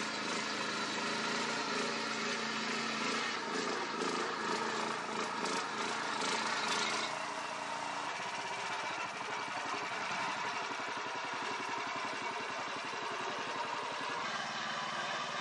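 Four-stroke petrol engine of a ride-on mini tractor running steadily under load while its front rotary tiller churns soil. The sound shifts in tone about seven seconds in.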